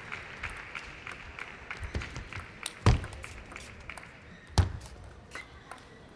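Scattered clapping dying away, then a table tennis ball knocking sharply a few times, loudest about three and four and a half seconds in, as play resumes with a serve.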